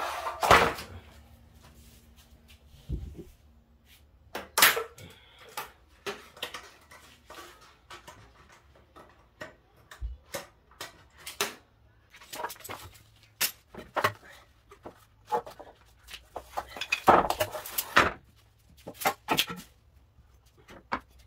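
Ratchet straps being released and pulled off a wooden frame: metal ratchet buckles clicking and clinking against the wood and the concrete floor in irregular sharp clicks and knocks.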